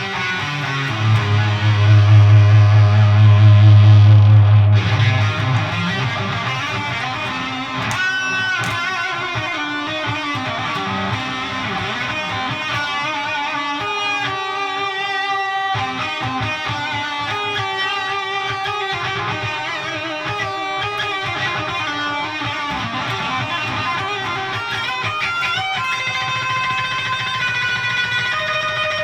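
Electric guitar through an HM-2-style heavy metal distortion pedal (Siren Pedals Eligos) into an all-tube amp, playing a dark riff. A heavy low note rings loudly for a few seconds near the start, then slower sustained notes and chords follow.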